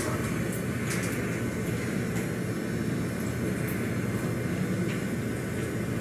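Steady low rumbling background noise with a few faint clicks, unchanging throughout.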